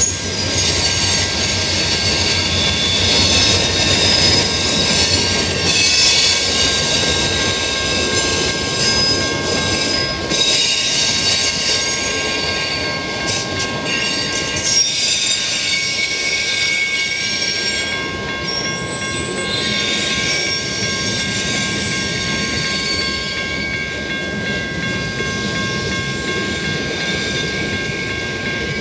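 Freight cars rolling past on steel rails, with steady high-pitched wheel squeal.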